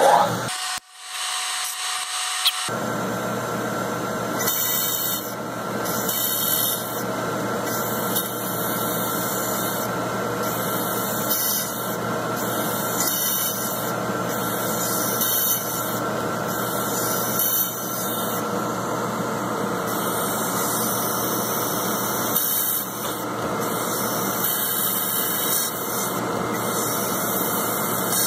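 Milling machine spindle running, a small drill bit cutting an oil hole into a plastic R/C differential bulkhead, with a high cutting squeal that swells and fades every second or two as the bit bites.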